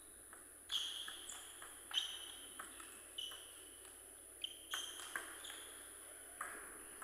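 Faint table tennis rally: a series of sharp clicks and ringing pings as the celluloid-type ball strikes the bats and the table, each hit about half a second to a second and a half apart.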